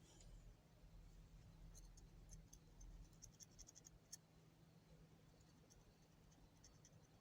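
Near silence with faint light clicks and scratching, clustered in the first half, over a low steady hum.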